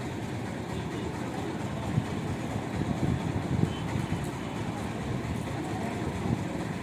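Steady low rumble of a vehicle engine running, with a couple of faint knocks.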